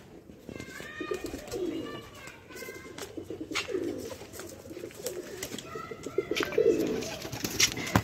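Domestic pigeons cooing: low rolling coos that recur every second or two, with short higher-pitched calls between them.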